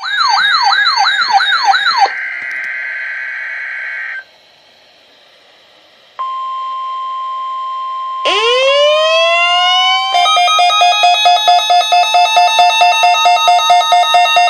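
A string of electronic siren and alarm tones. First a fast yelp that rises over and over, about three sweeps a second, for two seconds, then a steady high tone. After a quieter stretch a steady single tone sounds, a siren winds up in pitch about eight seconds in, and near ten seconds it turns into a rapidly pulsing alarm, about four beats a second.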